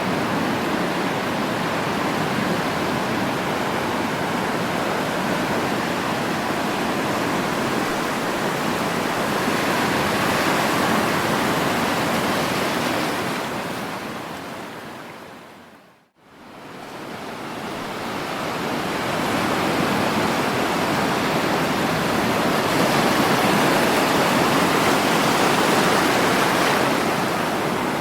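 Sea surf: waves washing onto the shore in a steady rushing noise that swells and ebbs slowly. About halfway through, the sound fades out to silence and then fades back in, like a join between two recordings.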